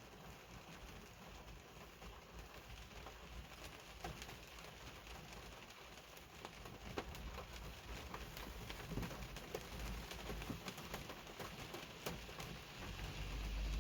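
Heavy rain falling, a steady hiss dotted with many sharp drips and drop strikes. A low rumble swells toward the end.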